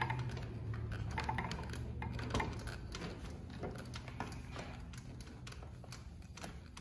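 Consew 255RB-3 walking-foot lockstitch sewing machine turned slowly by its handwheel through a thick strap: irregular clicks and knocks from the needle and feed mechanism, over a low hum that fades away.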